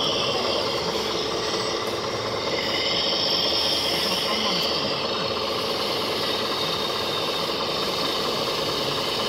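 Radio-controlled model trucks and excavators working: a steady whine of small electric motors and gearing, with faint voices underneath.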